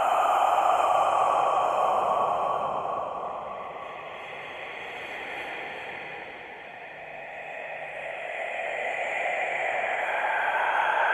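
Eerie breathy whispering with no clear words, swelling and fading: loud at first, sinking to a low point around the middle, then rising again near the end.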